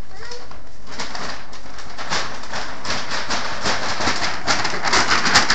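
Brown paper bag rustling and crinkling as it is handled or stepped in, with a dense crackle that grows louder near the end.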